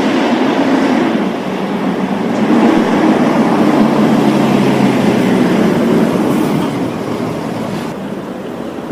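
Fire engine's diesel engine running as the truck drives slowly past, a steady rumble that grows louder through the middle and eases off after about six seconds. Near the end it gives way to a softer, steady outdoor rumble.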